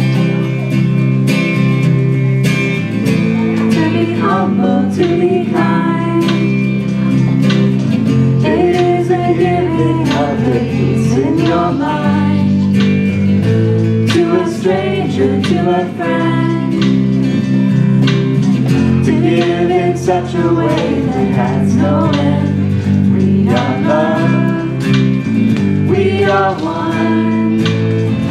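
Live band performing a song: strummed guitars holding chords, with a woman singing the lead melody into a microphone from about three seconds in.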